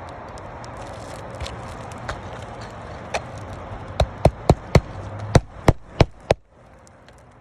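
A run of sharp knocks: one about three seconds in, then eight loud ones in quick succession, about four a second, over a steady rushing background that cuts off just after the last knock.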